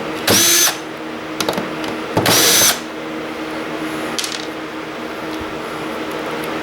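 Cordless power driver whirring in two short bursts, about two seconds apart, each rising quickly in pitch and then holding. It is backing out Phillips and Torx screws from a server blade, with light clicks of handling between the bursts.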